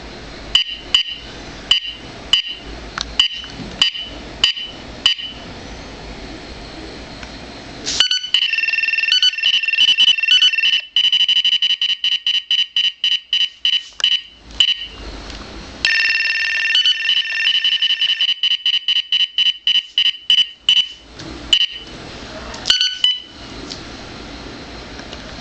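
Radar detector alert tones from a Valentine One and a Beltronics RX65 sounding together, set off by detector leakage. Spaced beeps about twice a second give way to two long stretches of rapid, fast-repeating warning beeps, then a few more chirps near the end.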